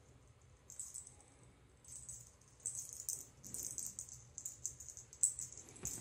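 Light, high-pitched rattling and clicking in quick irregular bursts, sparse at first and almost continuous in the second half, with one sharper click near the end.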